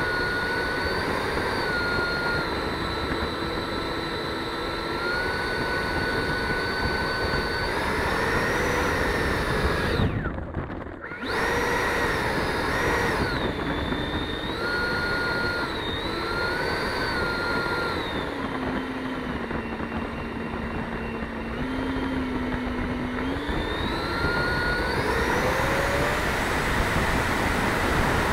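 Electric ducted fan of an E-flite F-16 80 mm EDF model jet whining, heard close up from the airframe, its pitch stepping up and down with the throttle. The fan drops away briefly about ten seconds in, then its pitch climbs near the end as the jet starts its takeoff roll across the grass.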